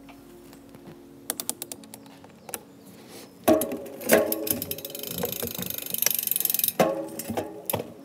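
Mountain bike drivetrain turned by hand while the gears are shifted down to the smallest sprocket. A few clicks come first, then about half a second in a run of rapid ticking as the chain runs over the SRAM cassette and rear derailleur.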